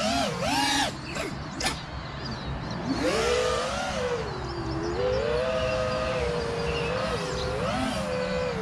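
A 4S freestyle FPV quadcopter's brushless motors and propellers whining in flight, the pitch rising and falling with throttle over a rush of air, with a brief sharp click about one and a half seconds in.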